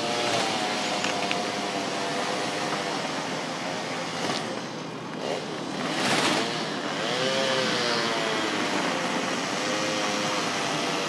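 A car driving, heard from inside: a steady rush of road noise with a humming engine note that slowly rises and falls, and a brief louder rush about six seconds in.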